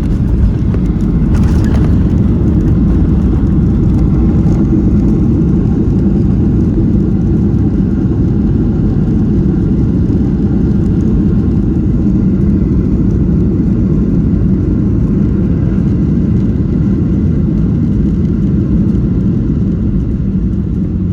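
Steady low rumble of jet engine and airflow noise heard inside a Boeing airliner's cabin, with a brief hiss about a second and a half in.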